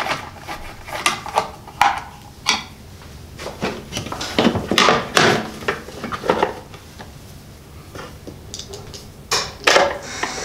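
Irregular clicks, knocks and short scrapes of a Phillips screwdriver and hands working on the plastic head cover of a Minn Kota Riptide trolling motor as its side-cover screws are tightened, with a quick run of knocks near the end.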